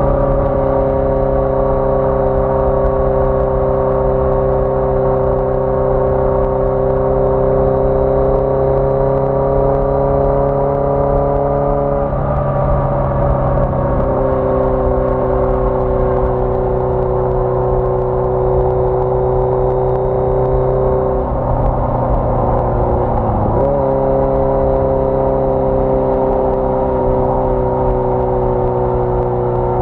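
1981 Yamaha XJ650 Maxim's air-cooled inline-four engine running under way at a steady, slightly drifting pitch. Its note breaks and settles at a new pitch about twelve seconds in, and again about two-thirds of the way through, with a brief dip.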